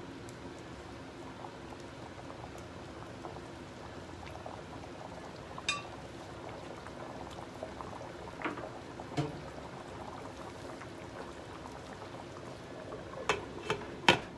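Thick tomato sauce with pork ribs and potatoes bubbling steadily in a frying pan, with a few light knocks along the way. Near the end a glass pan lid clinks into place in three quick clicks, the last the loudest.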